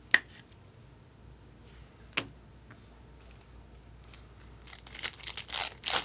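Baseball cards being handled by hand: two sharp clicks a couple of seconds apart, then a quick run of swishing and rustling near the end as cards are slid and flipped through.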